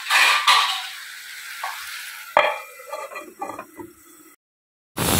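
Elephant foot yam curry sizzling in a kadai, with sharp metal clanks as a lid and utensils are handled on the pan. After a short dead break near the end, a loud steady sizzle starts.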